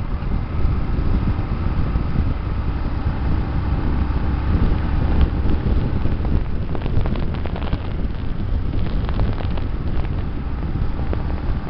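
Wind rushing over the microphone with a motorcycle's engine rumbling underneath as it rides along at speed. Faint clicks and crackles come and go in the second half.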